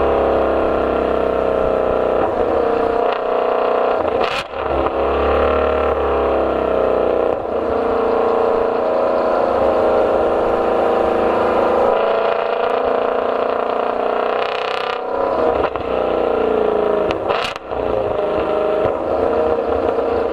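Ford Mustang Shelby GT350R's 5.2-litre flat-plane-crank V8 running at fairly steady revs, with short sharp breaks and dips in the sound about four seconds in and twice more near the end.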